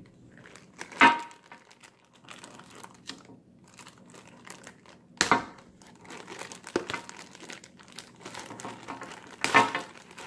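Cardboard-backed retail packaging being opened and a clear plastic bag crinkling as it is handled and pulled out, with three louder sharp crackles or rips: about a second in, about five seconds in and near the end.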